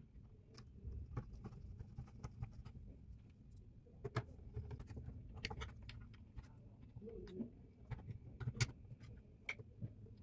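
Scattered light clicks and taps of a screwdriver and small screws being handled while an open bass amplifier chassis is reassembled.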